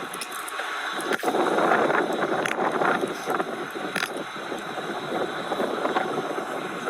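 Steady rush of wind on the microphone and roadside traffic noise, growing louder about a second in, with a few sharp clicks.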